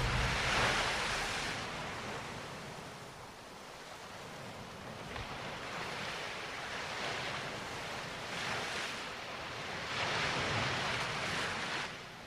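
Small sea waves breaking and washing up a sandy beach, rising and falling in several surges a couple of seconds apart.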